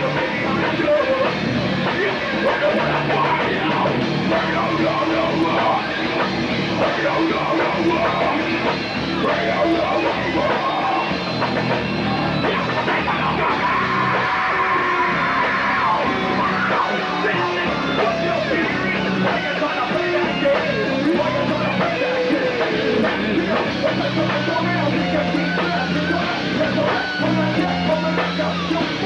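A rap-metal band playing live: distorted electric guitars, bass and drums, with the vocalist singing and yelling over them.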